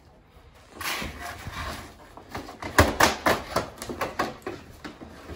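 Plastic casing of a ductless mini-split indoor wall unit knocking and clattering against its steel mounting plate as it is hung. The sharp knocks come in a quick run starting about three seconds in.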